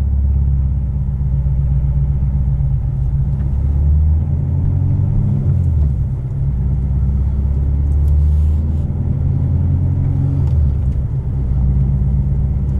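Modified C7 Corvette Stingray's 6.2-litre LT1 V8, with headers, cam and no mufflers, running under way with a loud, deep exhaust rumble heard from inside the cabin. The note dips slightly and comes back a couple of times as the throttle changes.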